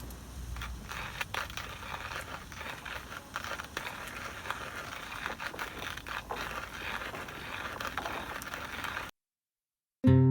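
Rustling and crinkling of tent fabric, with a low rumble of wind early on; the sound cuts off abruptly about nine seconds in.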